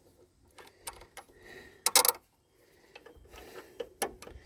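Scattered metallic clicks and clinks of bolts and brake-hose fittings being handled, with a louder short clatter about two seconds in.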